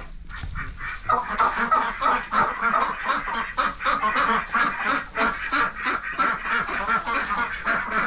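A penned-in backyard flock of chickens and ducks calling all at once, many short overlapping calls forming a continuous din that starts about a second in.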